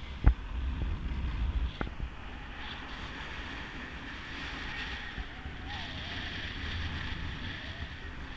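Wind rushing over the microphone in flight: a steady low rumble and hiss, with two sharp clicks in the first two seconds.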